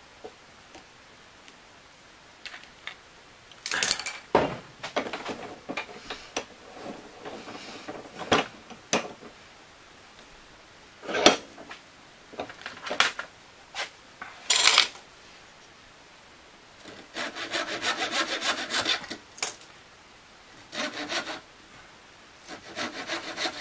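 Scattered wooden knocks and clatter as a small wooden block is handled, the sharpest a little past the middle. In the last third comes a fine-toothed hand saw cutting off the protruding ends of wooden dowels, with quick back-and-forth strokes in two runs.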